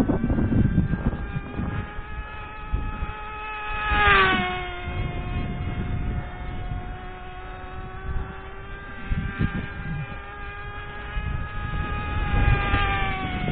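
Cox Tee Dee .051 model glow engine with a tuned pipe, running flat out as a steady high-pitched whine. The whine swells and drops in pitch as the speed plane passes the microphone about four seconds in, and again near the end. Wind gusts on the microphone give a low rumble underneath.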